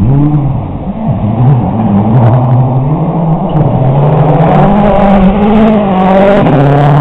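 A World Rally Car's 2.0-litre turbocharged four-cylinder engine running at full throttle on approach and passing close about six seconds in. Its pitch climbs and drops several times as it revs through the gears.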